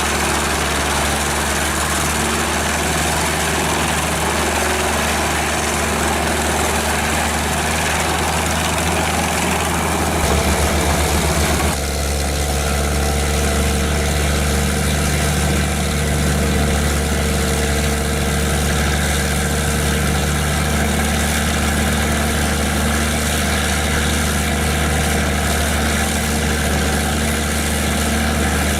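Large forestry wood chipper running with a steady heavy engine drone. A rougher, noisier layer over the drone gives way suddenly about twelve seconds in to a plainer, steadier engine sound.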